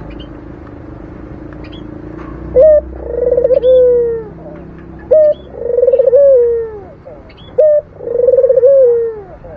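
Barbary dove (local burung puter) cooing in its rolling 'mendengkur' call: three phrases, the first about two and a half seconds in, each a short clipped note followed by a long wavering, trilled coo that falls away at the end. Faint chirps of small birds and a low steady hum lie underneath.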